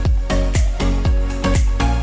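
Electronic dance music with a steady four-on-the-floor kick drum, about two beats a second, under synth chords.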